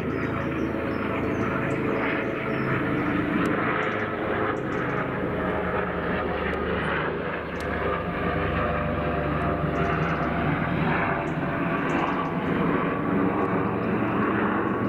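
Airbus H145 helicopter flying past close by: the steady drone of its main rotor and twin turbine engines, with its ducted Fenestron tail rotor.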